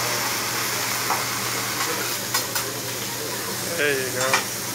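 Shrimp and chicken sizzling steadily on a hot hibachi griddle, with two sharp metal clicks a little past halfway as the chef's spatulas strike the flat-top. A brief voice and another click near the end.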